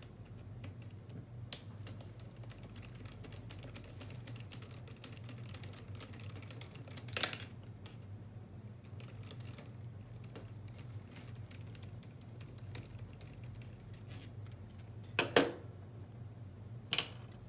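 Small clicks and taps of hand tools and small metal parts being handled while a shock is removed from a radio-controlled car, with sharper clacks about 7 seconds in, a close pair around 15 seconds and one more near the end. A steady low hum runs underneath.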